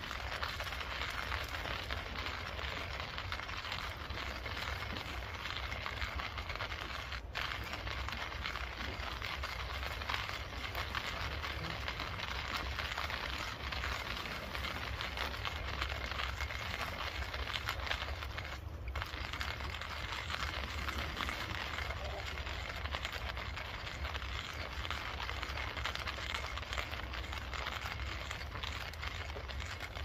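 Hand-cranked stainless-steel coffee grinder crushing beans: a steady, dense crackling grind that breaks off for an instant twice.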